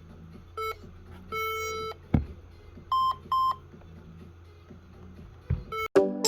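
HP laptop beeping as it fails to start: one short beep and then a longer one at the same lower pitch, followed by two short higher beeps, the warning beeps of a laptop that will not turn on. Two dull thumps come between the beeps, and music begins near the end.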